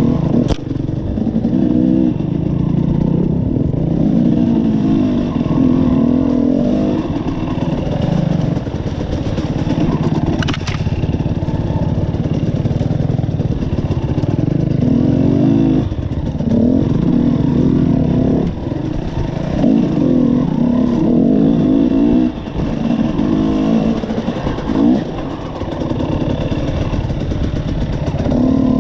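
KTM 300 XC two-stroke dirt bike engine, ridden off-road with the throttle opened and closed again and again, so the pitch rises and falls in short bursts every second or two. There is a sharp knock about half a second in and another about ten seconds in.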